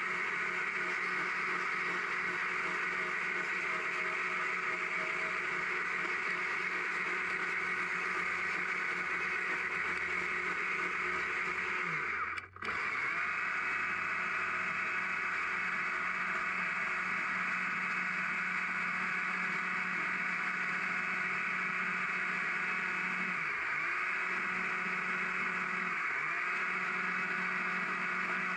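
Stihl chainsaw running at high revs while carving a small log, a steady engine note that sags briefly twice near the end. The sound cuts out for a split second about twelve seconds in.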